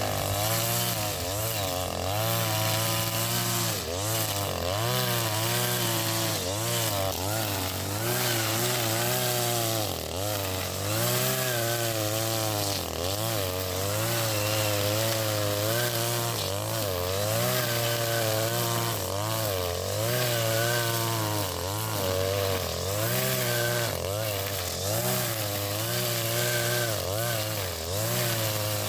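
Husqvarna 542RBS 42cc two-stroke brush cutter running at high speed on square nylon trimmer line, its pitch dipping and recovering about once every second or two as the line bites into thick grass.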